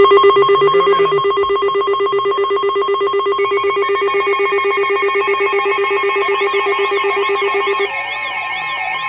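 NOAA weather radios sounding their tornado-warning alert alarms: a loud, steady pulsing two-tone alarm starts at once, more alarm tones join after a few seconds, and a warbling siren comes in about six and a half seconds in. The lowest tone cuts off near eight seconds while the others keep going.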